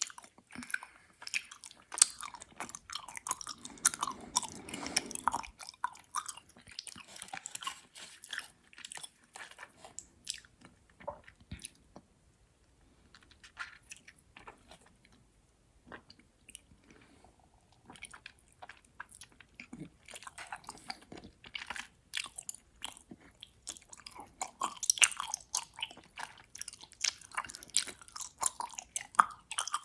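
Close-miked chewing of gummy worms: wet, sticky mouth sounds and quick clicks and smacks. The chewing thins out to a few soft sounds in the middle, then picks up densely again.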